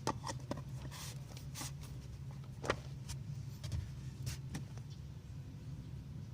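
Hyundai Eon's engine idling with a steady low hum, with scattered light clicks and one sharper click a little before halfway.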